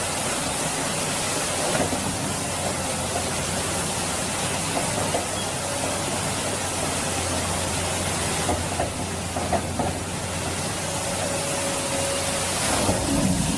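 Steady rushing of a fast, muddy flooded river, with the low steady hum of a tracked excavator's diesel engine beneath it and a few brief knocks in the second half.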